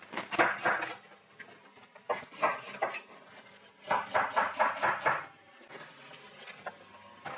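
Chef's knife slicing a carrot into rounds on a wooden cutting board: three quick runs of rapid chops, the last and loudest about a second long.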